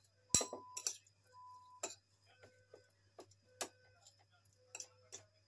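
Knife striking a cutting board: about seven irregular sharp clicks and knocks, the loudest about a third of a second in.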